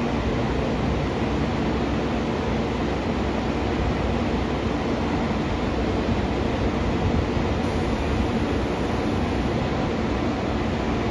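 Steady hum and hiss of a JR Kyushu 813 series electric train standing at the platform with its equipment running, in station noise.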